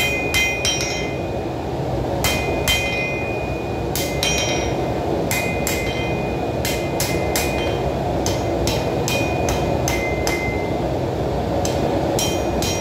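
Hand hammer striking a red-hot steel knife blade on an anvil in short runs of blows, each blow ringing with a bright metallic tone, while the blade is forged out from heavy-machinery flange steel. A steady low rushing noise runs underneath, from the lit forge.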